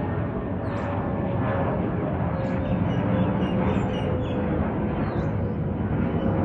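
Jet airliner engines running, a steady loud rumble with a held whine through it.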